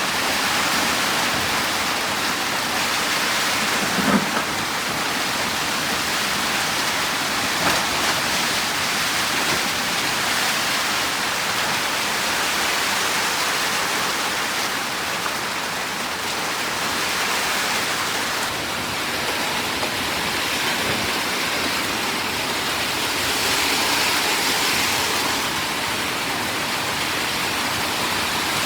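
Heavy rain falling steadily in a dense hiss, with a brief knock about four seconds in and a smaller one near eight seconds.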